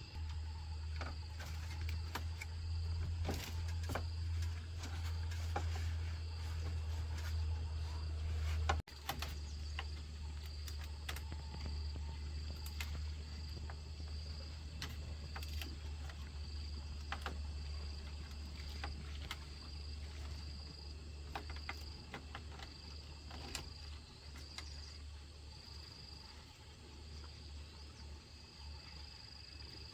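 Scattered sharp clicks and knocks, one louder knock about nine seconds in, over a steady high insect buzz that pulses toward the end and a low rumble.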